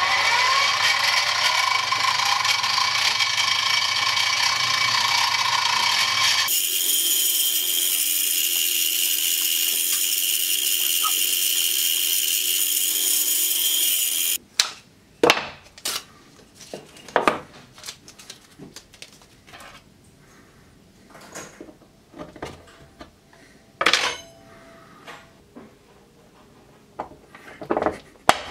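Small benchtop drill press running and drilling holes in a hardwood block: a steady motor whine with the bit cutting. The tone changes abruptly about six seconds in, and the machine stops suddenly about fourteen seconds in. Scattered light knocks and clicks of the wooden block and small hand tools being handled follow.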